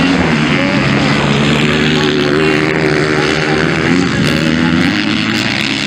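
Several motocross dirt bikes racing on a dirt track, their engines revving up and down as the riders work the throttle.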